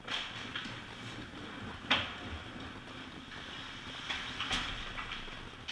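Ice hockey play heard from beside the goal: skate blades scraping the ice, with the clack of sticks and puck. The sharpest and loudest clack comes about two seconds in, and a few lighter knocks follow near the end.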